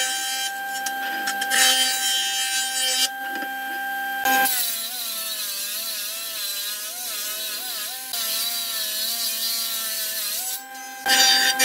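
Jointer's spinning cutterhead planing wooden boards, with a steady motor whine. In the first few seconds there are short bursts of cutting noise. From about four seconds in a long pass follows, where the whine sags in pitch and wavers as the motor works under the cut, then climbs back up near the end.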